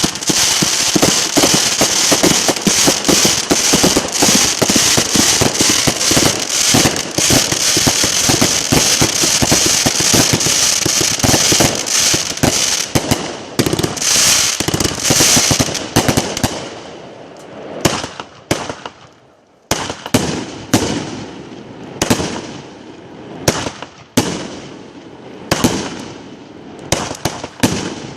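Fireworks going off: a dense, continuous run of rapid bangs and crackling for roughly the first sixteen seconds, then separate loud bangs about once a second, each trailing off.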